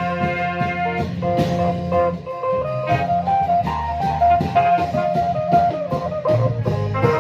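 Thai klong yao long-drum band music: a steady beat of drum and cymbal strikes under a sustained melodic line.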